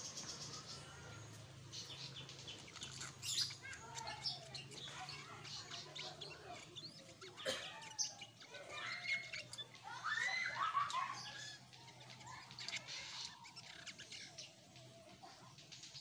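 A kutilang sutra bulbul singing a varied run of short chirps and whistled phrases, busiest and loudest about ten seconds in, over a low steady hum.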